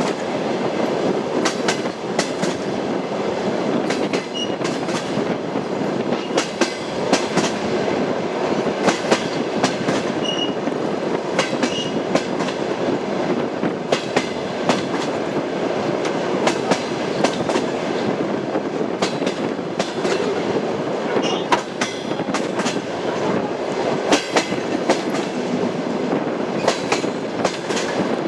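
Train wheels clattering over rail joints as the train rolls along: a steady rumble with sharp clicks, often in quick pairs and groups, at uneven intervals.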